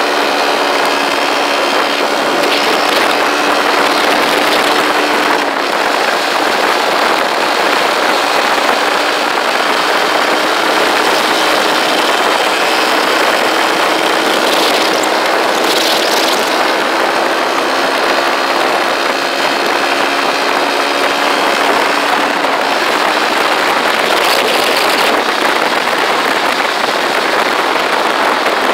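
Motorcycle engine running at a steady cruising speed, its hum buried under dense wind and road noise.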